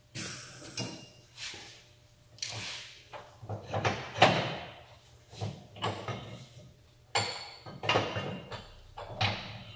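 Arc welder running in short, irregular bursts, the arc starting and stopping about a dozen times. The welders put the weak arc down to losing voltage from a poor ground through the part's coating.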